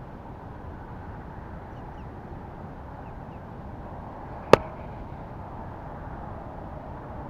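Steady wind noise on the microphone, with one sharp click about four and a half seconds in, the loudest thing heard.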